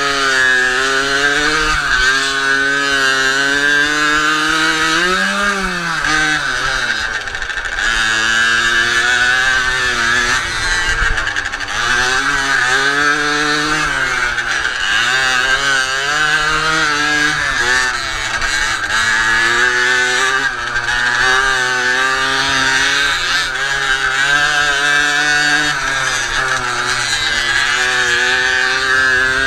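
Tuned Jawa Pionier 50 cc single-cylinder two-stroke moped engine heard from the rider's seat, revving up and dropping back again and again as the throttle is opened and closed through the course's turns.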